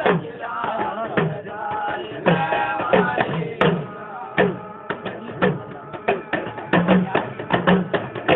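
Devotional jagran song: a singer's voice over a steady beat of drum strokes. After about four seconds the voice mostly drops away and the drum rhythm carries on.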